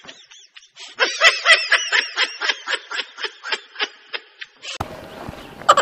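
Comic laughter sound effect: a rapid run of snickering laughs, about four or five a second, louder from about a second in and fading away near the end.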